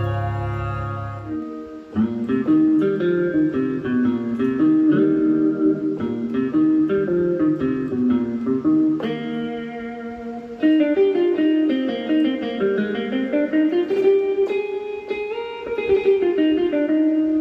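Roland synthesizer keyboard playing a plucked-string, guitar-like patch from an Indian sound package. A held low chord fades out, then a fast melodic line of plucked notes runs on from about two seconds in.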